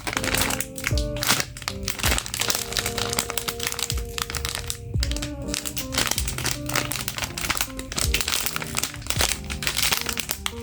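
Plastic packaging crinkling and crackling as it is handled and opened, many quick rustles throughout, over background music with held notes and a bass line.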